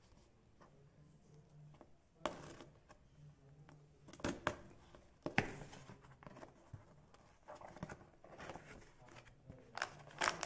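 Packing tape on a cardboard shipping box being slit with a pen tip: a few short scrapes and tearing rustles, seconds apart. Near the end the cardboard flaps rustle as they are pulled open.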